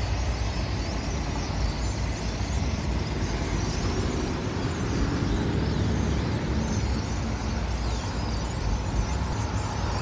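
Dense chattering of a huge flock of birds massed on power lines and flying overhead, many small high calls overlapping, over a steady low rumble.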